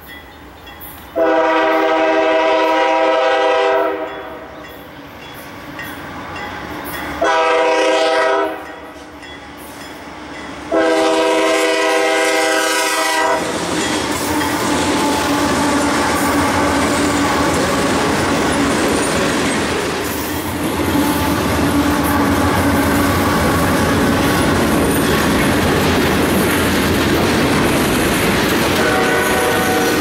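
Diesel freight locomotive's multi-note air horn sounding three blasts for a grade crossing: long, short, long. The lead locomotives then pass close with engine rumble and wheel noise, giving way to the clickety-clack of open-top hopper cars rolling by, with a horn sounding again faintly near the end.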